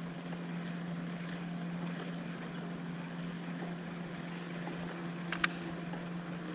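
Steady low hum of a motor over a light hiss of wind and water, with two short clicks about five seconds in.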